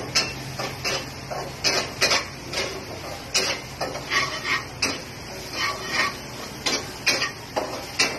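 Kitchen utensils knocking and clinking against dishes and cookware: a string of irregular sharp clicks, about two a second, a few of them ringing briefly like metal.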